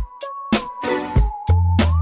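Hip hop ringtone music: a beat of sharp drum hits under a sustained high synth line. A deep bass note comes in about one and a half seconds in.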